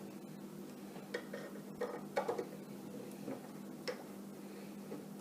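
Scattered light metallic clicks and taps from a screwdriver and small screws being worked on a metal LED light fixture, heard over a steady low hum.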